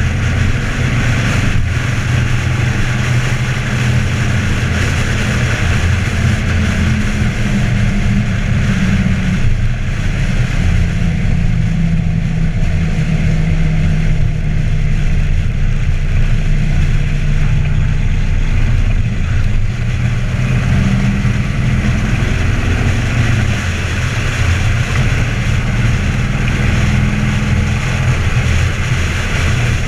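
2012 Harley-Davidson Ultra Limited's 103-cubic-inch Twin Cam V-twin, fitted with an Andrews 57H cam and true dual exhaust, running at cruising speed, its note rising and falling a little with the throttle. Wind rushes over the microphone.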